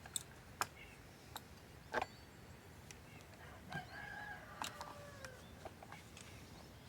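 A few sharp clicks and knocks of a chainsaw's bar cover, nut and chain being handled while the chain is changed. A faint, wavering pitched call sounds in the background near the middle.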